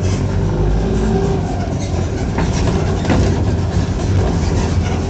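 Mercedes-Benz OF-1418 bus's diesel engine and exhaust running loud and steady, a low drone, with a few sharp clicks and rattles over it.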